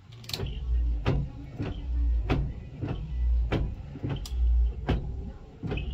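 1990 Dodge Grand Caravan's windshield wipers running: the wiper motor and linkage drive the blades back and forth across the wet glass, with a deep surge on each sweep and a sharp click at the ends of the stroke, repeating about every 1.3 seconds.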